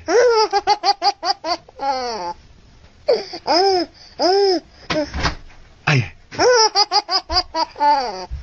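Baby laughing hard: runs of quick, hiccuping laugh pulses, broken by a pause and a few longer, drawn-out squeals of laughter in the middle.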